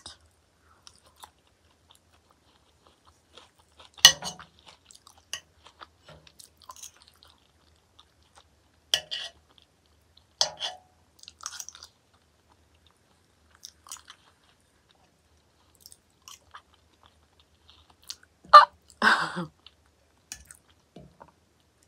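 Close-miked eating: soft chewing of avocado and cottage cheese, with a few sharp clicks of a metal fork on a ceramic plate. The clicks fall about four seconds in and twice around nine to ten seconds, and a louder burst comes near the end.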